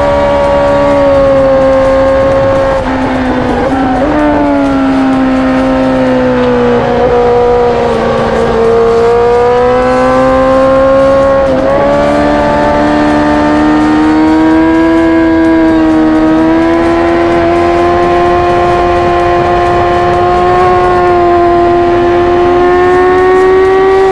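Honda CBR1000RR-R SP superbike's inline-four engine running hard on track, heard close to its exhaust. The pitch sags over the first several seconds, with short breaks about three seconds in and again near the middle, then climbs slowly and steadily as the bike accelerates.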